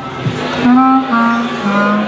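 Live swing jazz band playing, with a melody line of long held notes that step downward in pitch and a short falling slide about a quarter of a second in.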